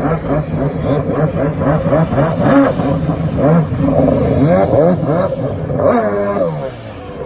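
Freestyle jet ski engine revving hard and easing off over and over, its pitch rising and falling about once a second as the throttle is worked through tricks. Near the end the revs fall away and it goes quieter.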